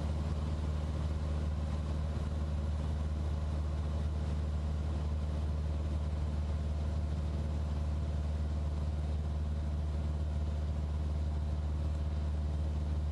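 Light aircraft's piston engine and propeller droning steadily, heard from inside the cabin in flight: a deep, even hum with several steady tones above it.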